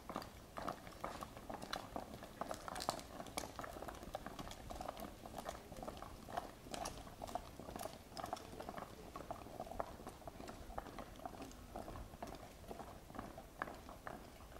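Footsteps of a group of Buddhist monks walking over stone paving and gravel: a dense, irregular patter of scuffs and small clicks.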